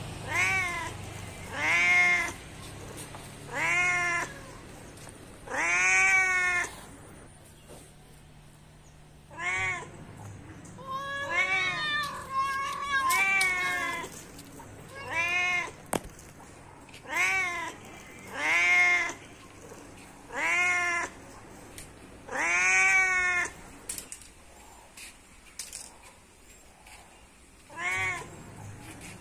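A domestic cat meowing over and over: about a dozen drawn-out meows, each rising then falling in pitch, roughly every two seconds, with a quick run of shorter calls midway and a pause before the last two.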